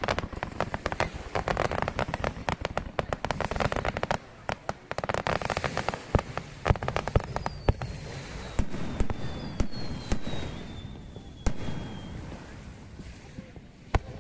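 Fireworks display: dense crackling of many small bursts for about the first half, then separate bangs, with a couple of thin falling whistles in the second half.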